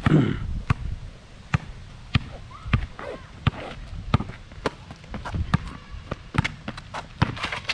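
A basketball being dribbled on a hard court: a run of sharp bounces, one about every half second, coming quicker in the last second and a half, with a heavier thud right at the start.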